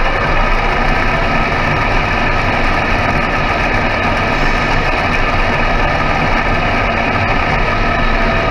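Radio-controlled scale semi-truck running along the track, giving a steady engine-like hum.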